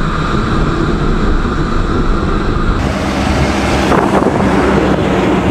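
Bajaj Pulsar 150's single-cylinder engine running at highway speed under steady wind rush on the microphone. About three seconds in it cuts suddenly to brighter roadside wind noise, with a heavy truck rushing past.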